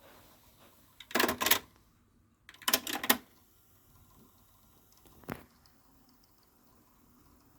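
Mechanical clicking and clatter from a Sony TC-WE435 cassette deck's tape transport: two short bursts about a second and a half apart, then a single click a couple of seconds later.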